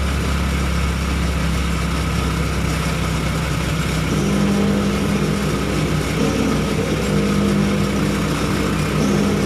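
Honda Supra Fit motorcycle engine running steadily. A second, higher engine note comes and goes from about four seconds in.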